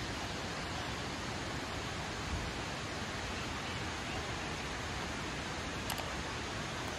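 Steady, even rushing noise of the outdoor surroundings, with no speech. About six seconds in comes a short high click and chime from a subscribe-button sound effect.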